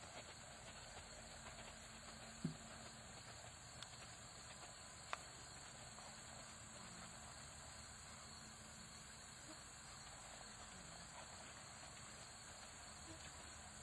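Near silence: a faint, steady outdoor hiss, broken by two soft knocks about two and a half and five seconds in.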